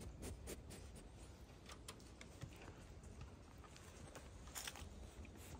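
Faint, scattered light clicks and scuffs of coatis' claws on wooden deck boards, over a low background hum.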